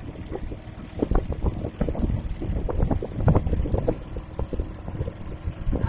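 A small motorboat under way: a steady low rumble with wind noise, and irregular knocks and rattles every second or so.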